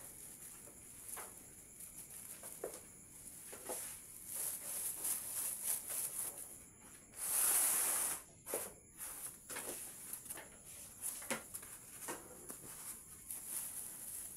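Scattered light knocks and clatter of metal baking trays being handled at the bakery racks, with one brief louder rushing scrape about halfway through. A faint steady high whine runs underneath.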